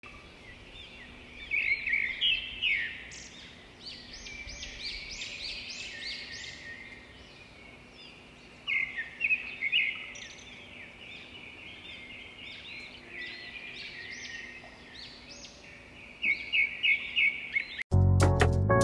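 Small birds chirping and twittering in quick runs of high calls, busiest in a few spells. Music cuts in abruptly near the end.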